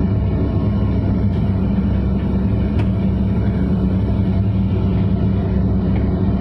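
Hitachi hydraulic excavator's diesel engine running steadily, with a few faint clicks over it.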